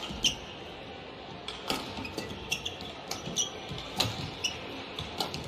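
Badminton rally: a series of sharp racket hits on the shuttlecock a second or two apart, the loudest about four seconds in, with short squeaks of players' shoes on the court.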